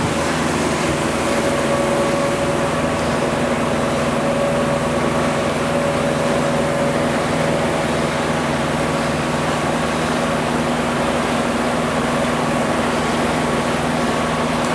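Motorboat engine running steadily at one pitch, a constant hum with rushing water noise underneath.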